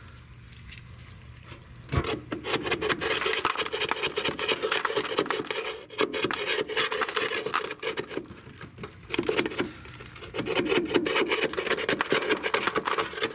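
A flat piece of metal scraping old wasp nests out from around a car's fuel tank: rapid rasping strokes that start about two seconds in and run on with a couple of brief breaks.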